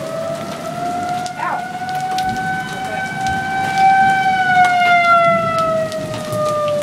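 Outdoor tornado warning siren wailing, its pitch rising slowly for about four seconds and then falling, over steady rain.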